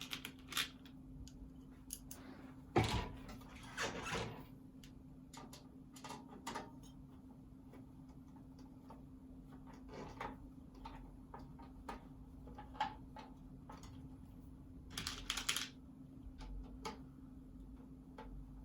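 Scattered small clicks, taps and clatters of screws and a case fan being handled and screwed into a PC case with a small Phillips screwdriver, with one louder knock about three seconds in.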